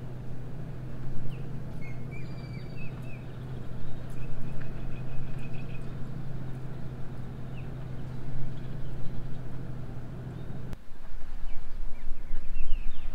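A steady low mechanical hum runs and then cuts off abruptly about eleven seconds in. Birds chirp in short bursts over it, near the start and again near the end.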